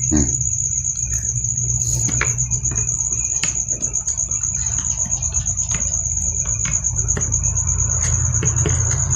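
Scattered small clicks and taps of a power drill's carbon brush holders and springs being handled during disassembly. Under them run a steady high-pitched trill and a low hum.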